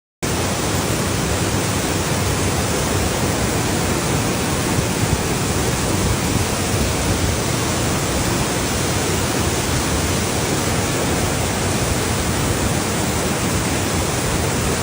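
Typhoon wind and rain making a loud, steady rushing noise, heaviest in the low end, with no change through the clip.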